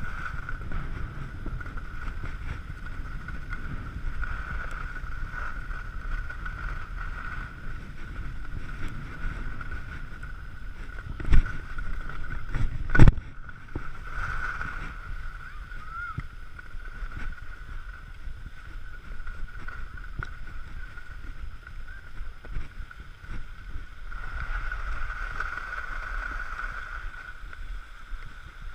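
Skis sliding and scraping over groomed snow with wind rushing over the microphone during a downhill run, and a steady faint high hum throughout. Two sharp knocks come about 11 and 13 seconds in.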